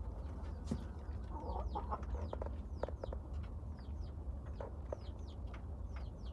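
Domestic chickens calling: a few low clucks between about one and a half and three seconds in, over many short, high, falling peeps, with a steady low hum underneath.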